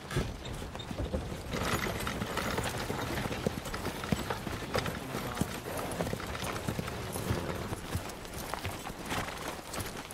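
Hooves of many horses clip-clopping at a walk, the knocks irregular and overlapping.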